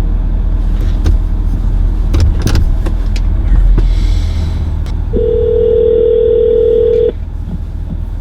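A phone call ringing on speaker inside a vehicle: one steady two-second ringback tone about five seconds in, over the low rumble of the vehicle in the cabin. A few sharp clicks come earlier.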